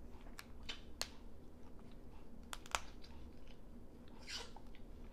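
Faint mouth sounds of eating steamed blue crab and shrimp: chewing, with scattered sharp clicks and crackles, and a short crunchy rustle about four seconds in.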